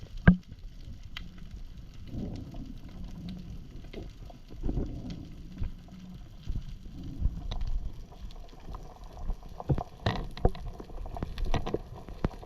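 Sea water movement picked up by a camera in an underwater housing: a muffled rumble with swells of sloshing every couple of seconds and scattered sharp clicks and knocks.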